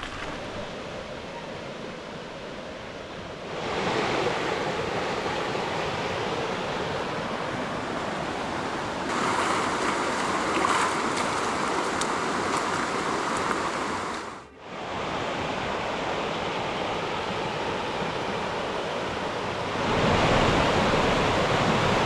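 Rushing water of a rain-swollen creek pouring through a rocky valley, a steady noise that gets louder about 3.5 s in and again near the end, with a brief drop about 14 seconds in.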